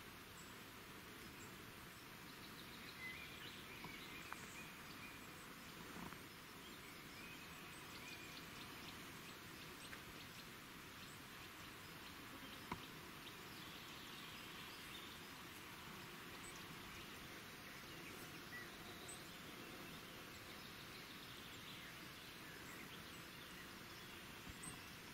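Faint outdoor ambience: a low steady hiss with distant bird calls now and then and a few small clicks, one sharper tick near the middle.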